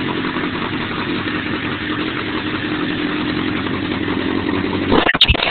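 1988 Honda Hurricane 1000F's inline-four engine idling steadily through dual Yoshimura exhausts. A few short, sharp noises break in near the end.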